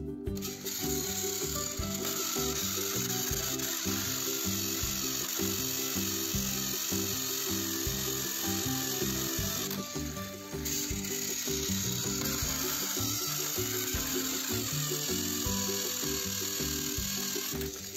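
Battery-powered Plarail toy train motors whirring with their plastic gears clattering, as two coupled engines strain against each other. Background music plays underneath.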